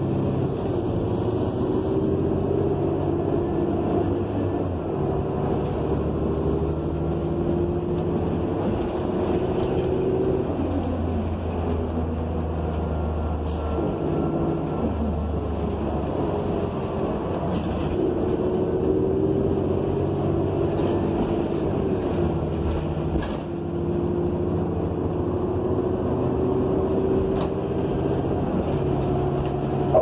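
Interior of a New Flyer XN40 city bus under way. The Cummins Westport L9N natural-gas engine and Allison B400R automatic transmission drone steadily, with road rumble. The engine note rises and drops several times as the bus speeds up and slows.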